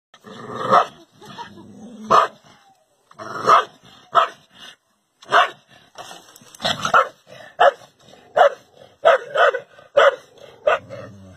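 A dog barking: over a dozen short, sharp barks at irregular intervals, some closely paired, with brief pauses between them.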